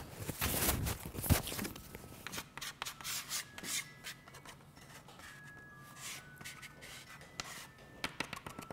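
Hands and a small bench scraper rubbing and scraping spilled flour across a countertop: a run of short scrapes and light taps, loudest in the first couple of seconds.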